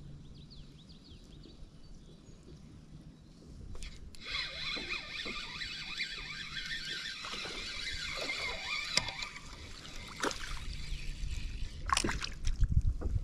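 Spinning reel whirring steadily for about six seconds as line is reeled in, starting about four seconds in. Near the end there are a couple of sharp knocks and a low rumble against the microphone.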